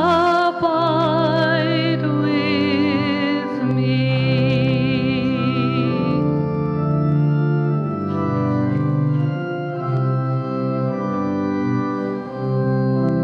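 Church organ playing sustained hymn chords under a solo voice singing with strong vibrato; about six seconds in the voice stops and the organ plays on alone.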